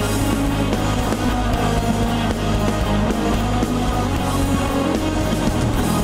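Live metal band playing loud and steady: distorted electric guitars, bass guitar and drums.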